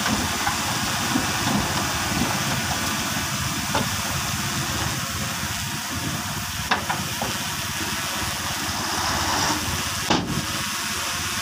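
Small crawler bulldozer's diesel engine running under a steady hiss as it pushes dirt, with a few sharp clanks along the way.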